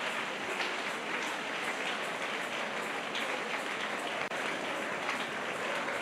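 Congregation's steady, indistinct crowd noise: many people praying aloud at once, with clapping mixed in and no single voice standing out.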